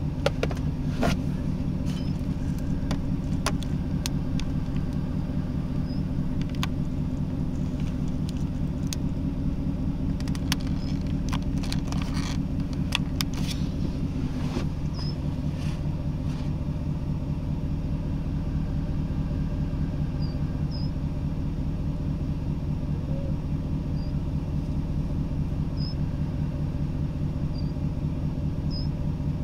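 Vehicle engine idling steadily with a low hum, with scattered sharp clicks and taps through roughly the first half.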